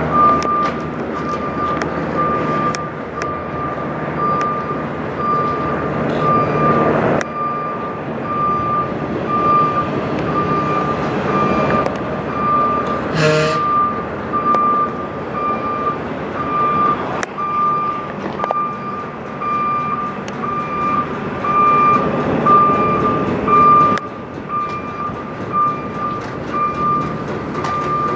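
A vehicle backup alarm beeping in an even, steady rhythm over the running of truck engines, with a short loud burst of noise about halfway through.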